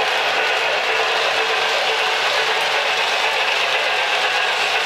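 K-Line O-gauge model trains running on Lionel Fastrack three-rail track: a steady mechanical whir and rattle of the locomotives' motors and gears and the wheels rolling over the track.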